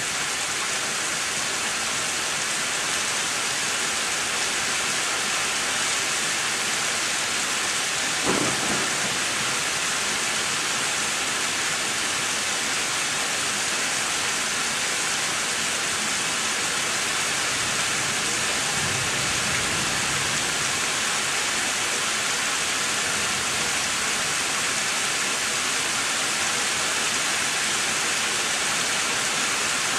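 Steady rain during a severe thunderstorm, with a short, sharp clap of thunder about eight seconds in and a softer low rumble of thunder later on.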